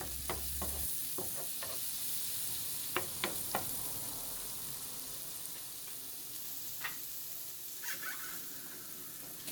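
Minced garlic sizzling in melted butter in a pan, with a utensil tapping and scraping the pan as it is stirred constantly to keep the garlic from burning. The sizzle is a steady hiss, and the taps come in small clusters.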